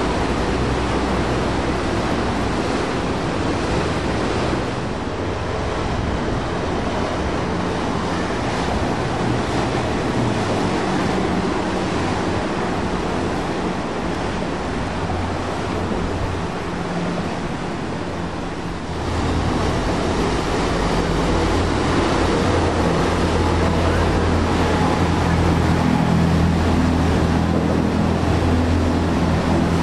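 Churning, rushing water of a strong canal current and boat wakes, with the low drone of passing boat engines underneath. The engine drone grows louder about two-thirds through as a larger boat passes close.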